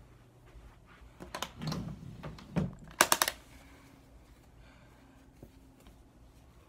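Handling noise from a phone held in the hand: a quick run of clicks and knocks, loudest about three seconds in, then only a faint low hum.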